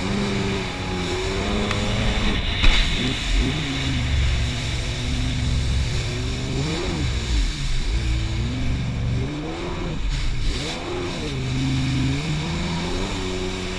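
Yamaha WaveRunner personal watercraft engine running under way, its pitch rising and falling as the throttle is worked, with rushing spray and wind noise. It eases off and comes back up twice, and a single sharp knock sounds about two and a half seconds in.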